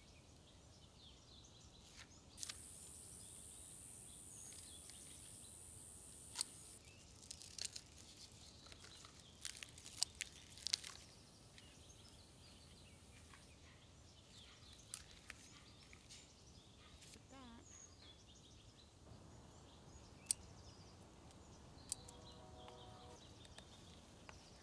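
Faint background ambience with scattered small clicks and taps. A thin, high, steady whine starts and stops twice, and a couple of faint chirps can be heard.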